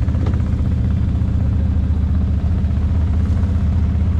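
ATV engine running steadily as the quad rolls slowly along a trail, a low, even drone with no change in speed.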